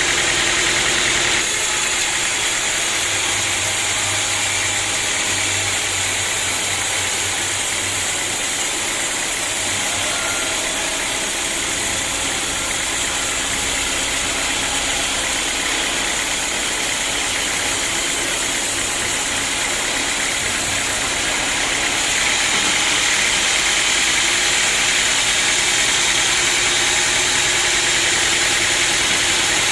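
Sawmill machinery running steadily with a constant engine-like drone and hiss; it drops slightly about a second and a half in and grows a little louder again about twenty-two seconds in.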